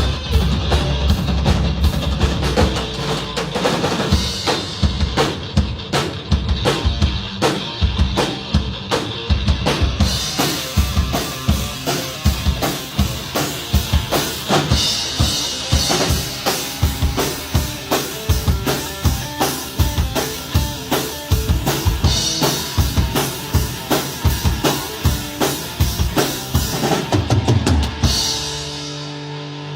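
Music led by a drum kit playing a steady, fast beat on bass drum and snare; near the end the drums stop, leaving held low notes.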